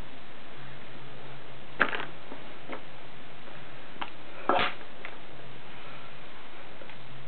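A few small clicks and taps from makeup items being handled: a sharp click about two seconds in and a louder cluster about four and a half seconds in, with fainter ticks between, over a steady hiss and low hum.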